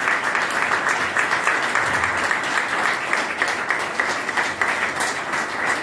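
Audience applauding: many hands clapping at once in a steady stream of claps.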